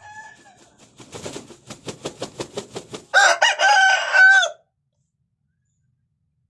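Rooster crowing: a quick run of short beats, about five a second, then one loud cock-a-doodle-doo lasting about a second and a half that stops suddenly.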